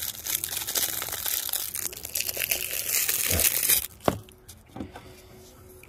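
Plastic packaging crinkling and rustling as it is handled, stopping abruptly about four seconds in, followed by a few light knocks.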